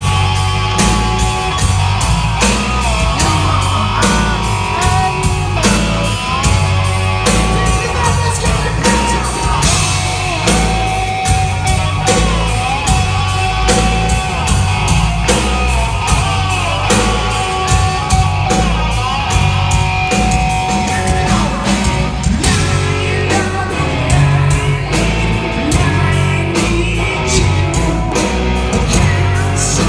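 Live hard rock band playing loudly: steady pounding drums, heavy bass and electric guitars, with a male singer's shouted vocals, heard from the crowd in a large hall.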